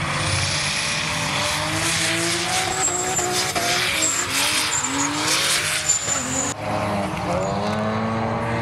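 Drift car's engine revving up and down while its rear tyres screech in a smoky sideways slide. About two-thirds through, the sound cuts abruptly to other drift cars' engines running steadily.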